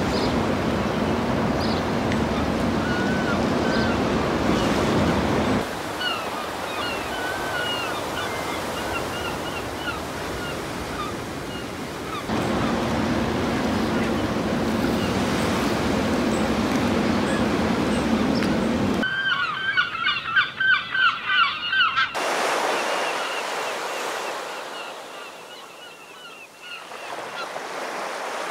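Waves washing on a shingle beach, with birds calling over the surf, in several short spliced clips. About 19 seconds in, a burst of loud, repeated bird calls lasts about three seconds, then the surf goes on more quietly.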